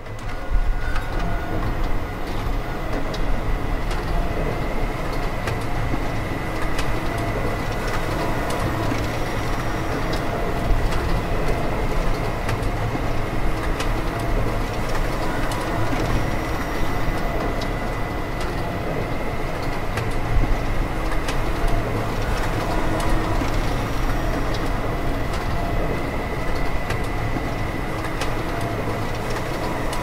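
Layered recordings of a Samsung MultiXPress printer's mechanisms, heavily reverberated to stand in for a mechanized factory: a dense, steady mechanical rumble with a constant high tone and scattered clicks throughout.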